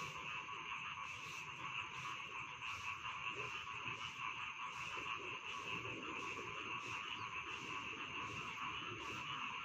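Dense chorus of rice-paddy frogs calling without a break, with a sharp clicking call repeating about every three-quarters of a second over it.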